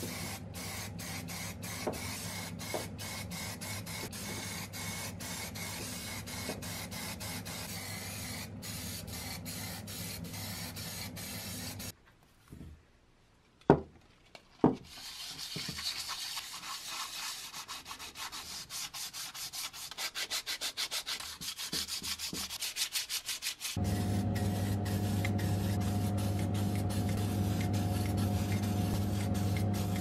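Aerosol spray can hissing primer onto a steel lock case, over a low hum. After a pause with two sharp knocks, sandpaper rubs the primed metal in quick strokes for dry sanding. About 24 seconds in, the spraying starts again with a louder steady hiss and hum as black paint goes on.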